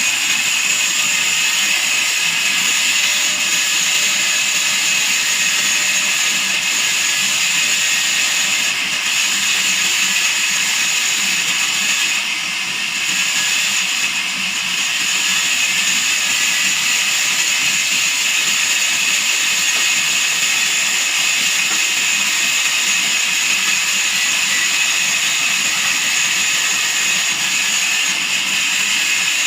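Band sawmill blade cutting through a log: a steady, loud, high-pitched hiss that dips briefly about 12 seconds in.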